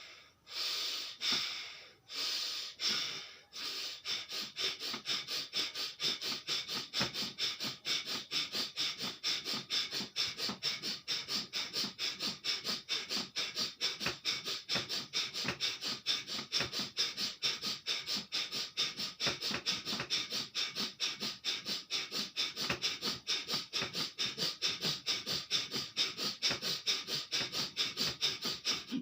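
Bhastrika pranayama (bellows breath): a person breathing forcefully in and out through the nose. A few slower, deep breaths come first, then about four seconds in it settles into a fast, even rhythm of sharp breaths.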